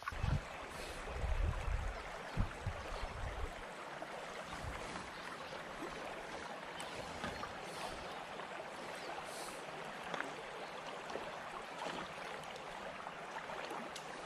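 Steady rush of flowing creek water, with low rumbling thumps on the microphone during the first few seconds.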